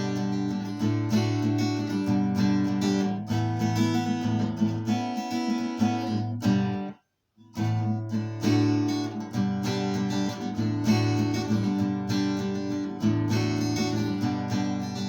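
Solo acoustic guitar played in a fast, rhythmic fingerstyle, with frequent sharp percussive attacks among the picked notes. A little before halfway it breaks off to silence for about half a second, then carries on.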